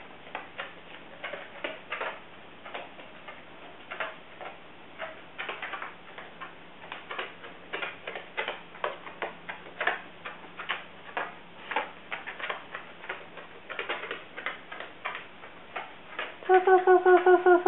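Irregular light ticking of a dachshund's claws and paws on tatami mats as it walks slowly about the room. A woman's voice comes in briefly near the end.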